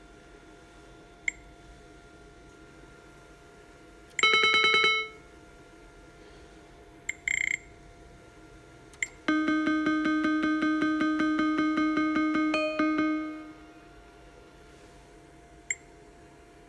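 IGT Game King video gaming machine sound effects: short touchscreen button beeps, a brief electronic chime about four seconds in, then a steady electronic tone with rapid ticking for about four seconds while a keno game plays.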